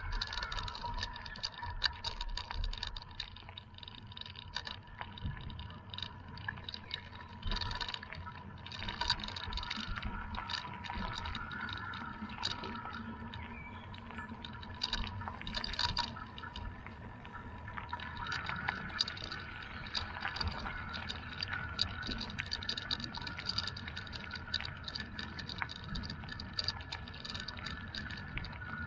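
Bicycle tyres rolling over a rough gravel path, with a steady low rumble and frequent small rattling clicks from the bike. A faint steady high hum runs underneath.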